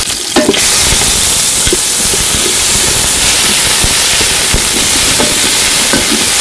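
Chopped red onions sizzling steadily in hot cooking oil, with small crackles and pops. The sizzle dips briefly right at the start.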